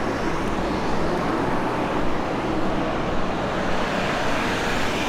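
Steady road traffic noise from passing cars on a town street.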